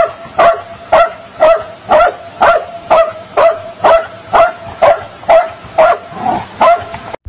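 A dog barking repeatedly in an even rhythm, about two barks a second, cutting off abruptly near the end.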